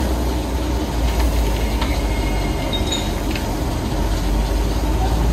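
Steady low rumble with a hiss over it, from the fire and boiling under a huge steaming cauldron of pulao, with a few faint light clinks about halfway through.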